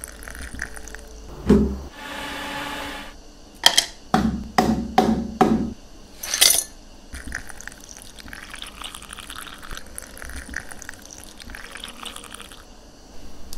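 Crushed ice clattering and knocking into a glass several times, then sparkling water pouring over juice and ice with a long, even fizzing hiss. A short whirr, about two seconds in, comes before the ice.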